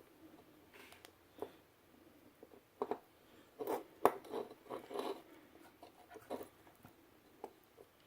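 Scattered light clicks and taps of wires and small parts being handled on a workbench, busiest in the middle.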